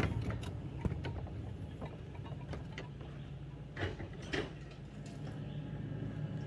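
Miniature-railway caboose rolling slowly along the track, with light clicking from its wheels and running gear and two sharper clicks about four seconds in, over a low steady hum.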